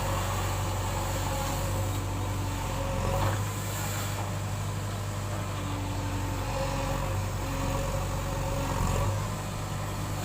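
Heavy diesel engine of earth-moving equipment running steadily under work, its low note shifting briefly about three seconds in and again near the end.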